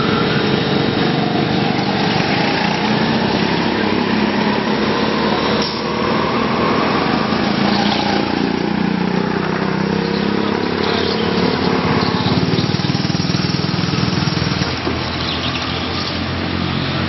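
Small petrol go-kart engines running as karts lap the track. One kart passes close about eight seconds in, its engine note rising and then falling.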